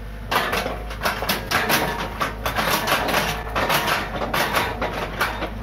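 Komatsu PC45 mini excavator running, with a dense run of irregular metallic clattering and scraping from the machine as it works its mud-laden bucket. The clatter starts a moment in and stops just before the end, over the engine's steady low running.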